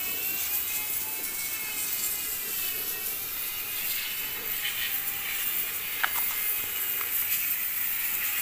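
Steady drone of a motor with a slowly wavering whine, over a high hiss. There is one sharp click about six seconds in.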